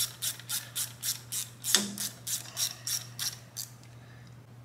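Hand ratchet clicking steadily, about four clicks a second, as it runs the freshly lubed bolt into the cam sprocket of a Harley-Davidson Twin Cam; the clicking stops about three and a half seconds in.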